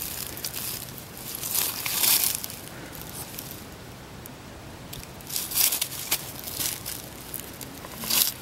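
Dry grass and dead leaves rustling and crunching in several short swishes as a bug net is swept through them and feet step through the litter; the loudest swishes come about two seconds in and about five and a half seconds in.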